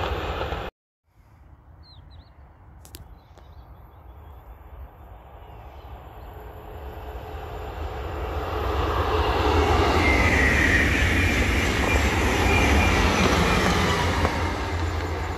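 High-speed electric train approaching at speed and passing close by. Its rushing air and wheel noise build steadily from faint to loud over several seconds and hold loud as it goes by. The sound cuts out abruptly to silence for a moment about a second in, then picks up again faint.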